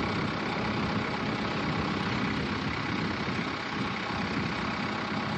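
An engine running steadily at idle, the steady drone of a machine on the job site.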